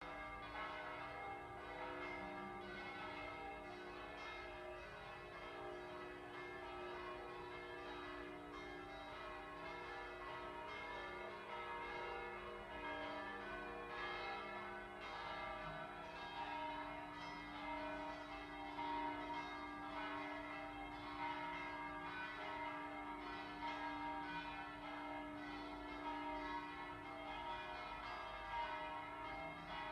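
Orthodox church bells ringing: several bells struck over and over in quick succession, their ringing tones overlapping into a continuous peal.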